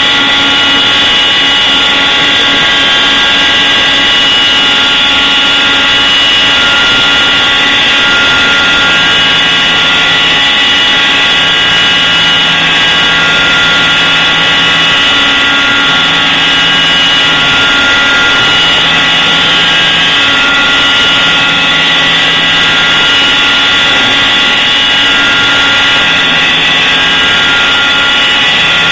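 Small CNC router spindle running at high speed with a steady high whine as its pointed engraving bit cuts lettering into a sheet. A lower hum comes and goes in stretches of one to three seconds.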